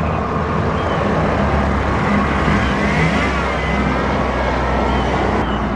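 Road traffic: the steady rumble of motor vehicle engines and tyres, swelling a little in the middle.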